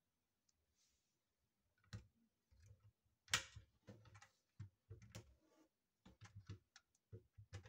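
Small clicks and knocks of a 1:24 die-cast model car's parts being handled and snapped shut, its hinged engine cover and rear wing among them. They are scattered and irregular, and the loudest is a sharp snap about a third of the way in.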